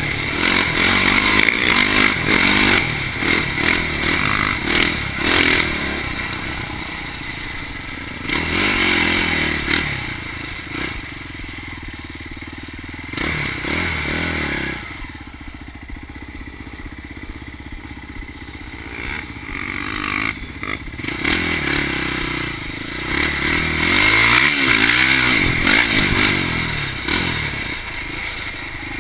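Polaris Predator 500 quad's single-cylinder four-stroke engine revving up and down under riding. It is quieter from about 11 to 22 seconds while the throttle eases off, then picks up again near the end.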